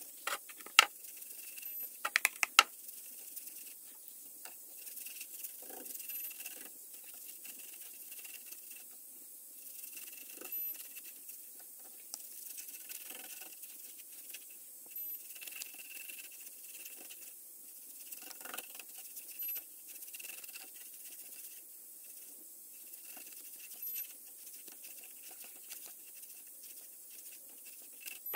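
Hand-applied finishing on a eucalyptus burl bowl: quiet, irregular scratchy rubbing and brushing on the wood, with a few sharp clicks and knocks in the first three seconds.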